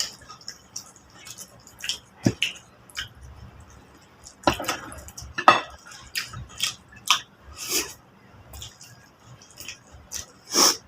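People eating a whole chicken with curry: irregular wet chewing and mouth smacks mixed with clinks of dishes, a louder one near the end.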